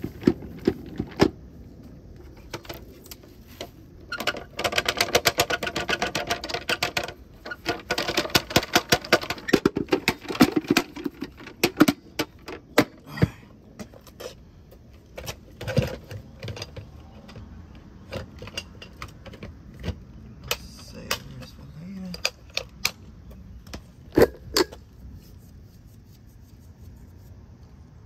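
Clicking, knocking and bursts of fast rattling from a bagless vacuum's plastic dust canister being handled and shaken out, with the plastic bag under it rustling.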